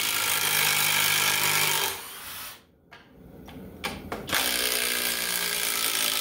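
Cordless impact driver on high speed hammering a long screw into wood. It stops about two seconds in, a few light clicks follow, and it starts hammering again a little past four seconds in.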